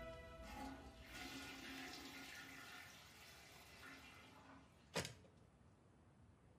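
Music fading out, then a faint rushing noise like running water, and a single sharp click about five seconds in.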